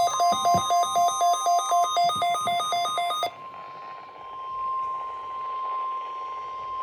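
Several NOAA weather radio receivers sound their electronic alert beeps together, a pulsing chorus of about three beeps a second at several pitches, over a steady tone near 1 kHz, the weather radio warning alarm sent for the weekly test. About three seconds in the beeping stops, leaving the steady tone with radio hiss.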